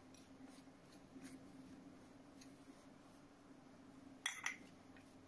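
Faint rustling of a hand rubbing and squeezing crumbly naan dough in a glass bowl, over a steady low hum. A brief clink of glass about four seconds in.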